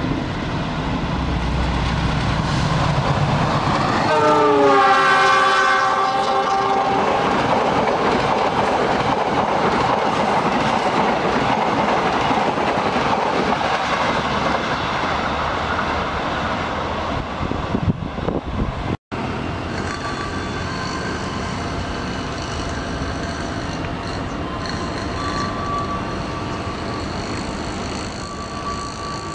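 Passenger train hauled by a CC 206 diesel-electric locomotive passing at speed: its horn sounds a few seconds in, the chord falling in pitch as the locomotive goes by, followed by the rushing noise of the coaches going past. After a sudden break, the steadier running noise of another diesel train.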